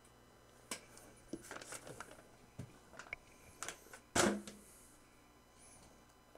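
Rummaging among small items on a workbench: a run of clicks and knocks over a few seconds, the loudest knock about four seconds in.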